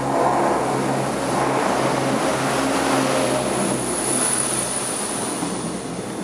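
CrossCountry Class 170 Turbostar diesel multiple unit running, a steady engine drone with a thin high whine above it.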